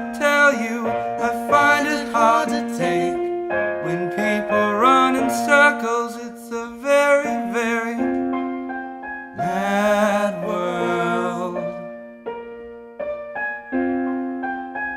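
Slow piano-accompanied song with a singing voice. Near the end the voice falls away, leaving sparse piano notes.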